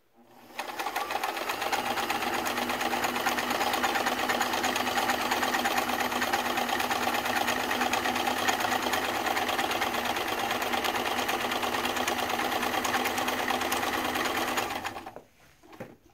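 Freshly serviced Kenmore Ultra-Stitch 12 vintage sewing machine running steadily at speed, sewing a multi-point zigzag stitch through fabric. It gives an even motor hum with a fast rhythm of needle strokes. It starts about half a second in and stops about a second before the end, followed by a few light clicks.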